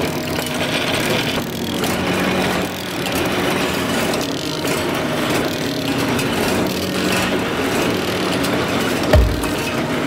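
Barbed wire making machine running: a steady mechanical drone with a low hum, swelling and dipping about once a second as the wire is twisted and wound. A deep thump comes about nine seconds in.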